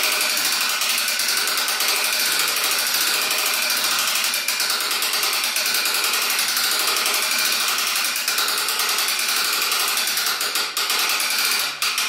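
Steady, dense mechanical running noise with a fast rattle, like a small power tool running.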